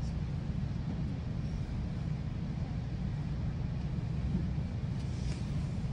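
Steady low rumble of a GO Transit passenger coach running along the track, heard from inside the car.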